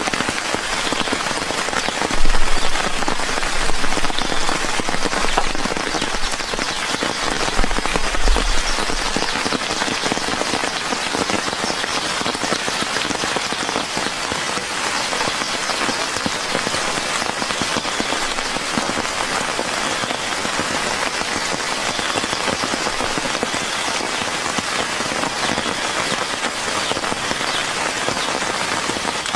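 Steady rain falling, a dense even patter. A few low thumps come in the first several seconds.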